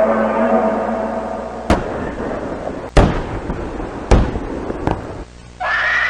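Four sharp bangs, roughly a second apart, over a noisy background: battle sound effects. A steady high tone with overtones comes in near the end.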